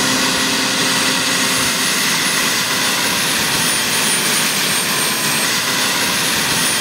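Model gas-turbine engine of a radio-controlled Bell 430 scale helicopter running with the helicopter on the ground and its four-bladed rotor turning: a steady loud rushing hiss with a thin high whine that dips slightly in pitch midway.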